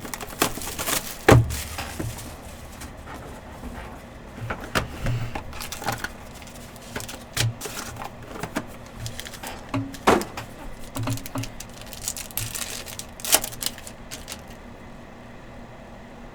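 A Panini Prizm Choice trading-card box being opened and its cards handled: scattered clicks, taps and rustles of cardboard and plastic, with a sharper knock about a second in and another near the end.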